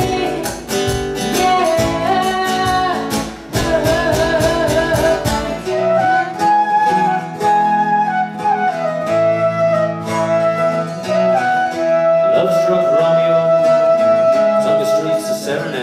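Concert flute playing a melody over a strummed acoustic guitar. The strumming is dense and rhythmic for the first six seconds or so, then thins out. The flute ends on one long held note.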